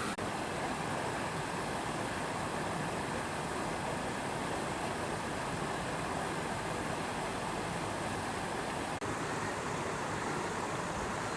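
Steady rushing noise with no distinct events, briefly dropping out just after the start and again about nine seconds in.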